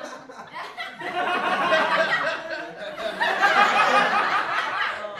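Children laughing, loudest in the second half.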